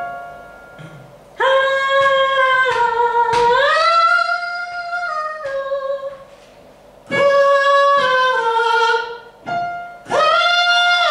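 A singer's voice holding long sung notes in three phrases, the first with an upward slide in pitch. A single piano note sounds and dies away before the first phrase and again just before the last.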